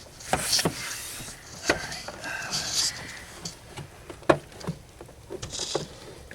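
Scattered clicks, knocks and rustling from seat-belt and trim parts being handled and fitted in a car's rear seat area, with one sharp click about four seconds in.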